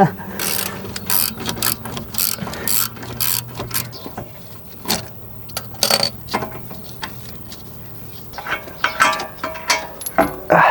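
Socket ratchet clicking in repeated strokes while a brake caliper bolt is being loosened, with pauses between bursts.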